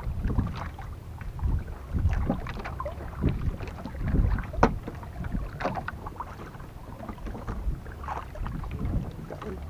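Uneven low rumble of wind and water around a small outrigger fishing boat at sea, with scattered light knocks and clicks and one sharper click about halfway through.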